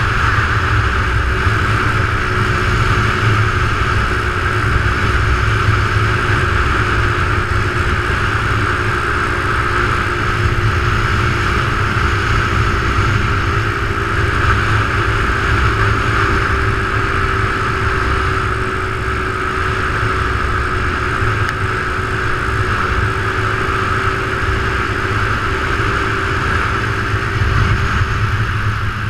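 Motorcycle riding at a steady cruising speed, its engine holding an even note under a heavy low rumble of wind on the bike-mounted microphone.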